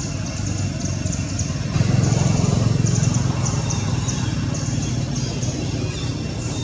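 A motor engine running, growing louder for about a second and a half some two seconds in, under a high-pitched buzz that pulses a few times a second.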